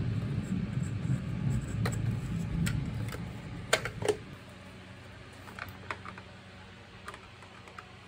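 Plastic top shell of a Zanussi vacuum cleaner being lifted off and laid aside by hand: rubbing and scraping of the housing for about three seconds, then several sharp plastic clicks and knocks, the loudest about four seconds in, followed by a few faint ticks.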